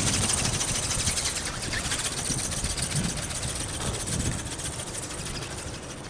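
Buzz of an RC ornithopter's small brushless electric motor and gear drive flapping its wings in flight, growing fainter as it flies off. Wind buffets the microphone underneath.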